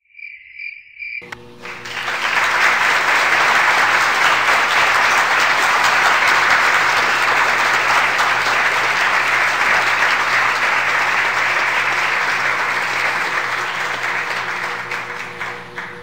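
Crickets chirping as a sound effect, three short chirps in the first second. Then a long round of crowd applause starts, loud and steady, and fades out near the end.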